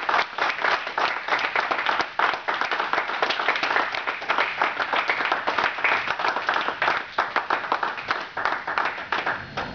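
Audience applauding, many hands clapping in a dense patter that eases slightly and stops near the end.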